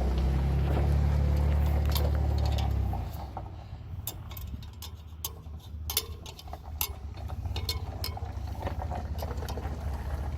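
A motor vehicle's engine idling with a steady low hum, cutting off about three seconds in. After it stops, a scatter of small sharp metallic clicks and clinks, like hand tools being handled.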